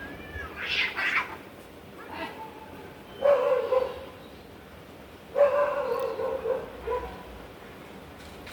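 Cat and dog squaring off and crying out at each other: a short high call at the start, then two long pitched cries about two seconds apart, the second one longer.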